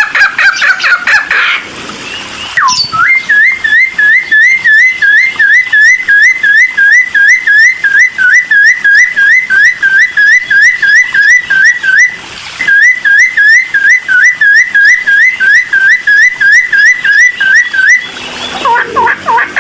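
Cucak timor singing loudly: after a short varied phrase it repeats one short whistled note, about four a second, in long even runs that break off twice.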